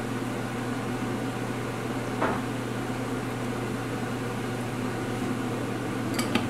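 Steady low machine hum, like a running kitchen appliance or fan, with a light knock about two seconds in and a few faint clicks near the end.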